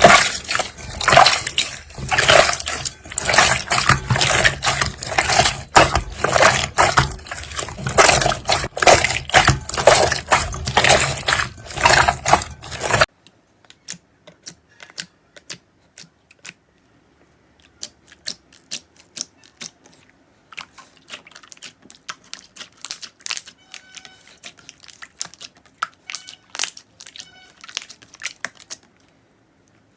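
Slime being squeezed and poked by hand, giving dense wet squishing and popping clicks. About halfway through it turns much quieter, with only scattered small sticky clicks and pops.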